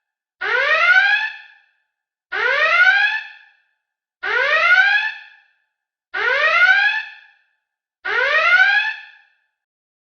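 Star Trek starship alert klaxon sound effect: a rising whoop, repeated five times about every two seconds, each one sliding up in pitch and then fading out.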